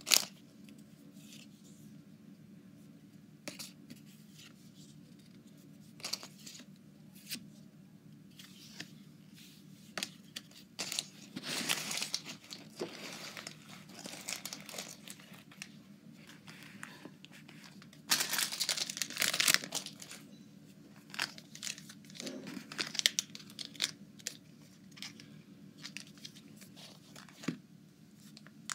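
Foil Pokémon card booster packs being torn open and crinkled, in scattered short rustles with two longer stretches of tearing, about a third of the way in and again around two-thirds. Small clicks and taps of card handling fall in between.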